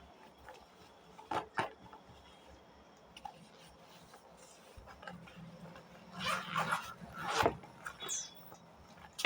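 Packaging being handled and opened: two sharp clicks about a second and a half in, then rustling and scraping a few seconds later.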